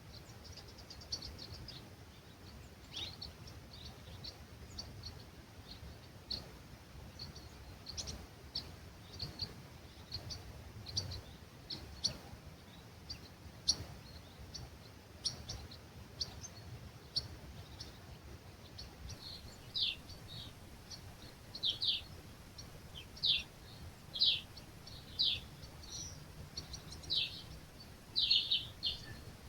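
Several birds chirping and singing at dawn in an olive grove, with short high notes throughout; from about two-thirds of the way in, one bird calls louder with quick repeated down-sliding notes. A faint low background of breeze underneath.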